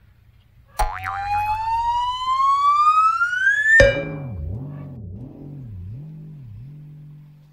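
Cartoon comedy sound effect. A whistle tone slides steadily upward for about three seconds and cuts off sharply, then a low, springy boing wobbles about twice a second and fades away.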